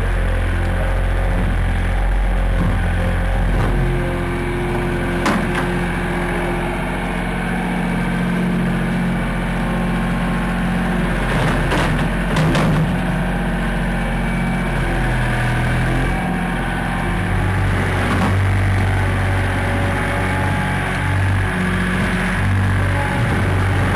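Engine of a Veper model S mining skid steer loader running steadily, its pitch stepping up and down as it works. A few sharp knocks cut through it, the loudest cluster about halfway through.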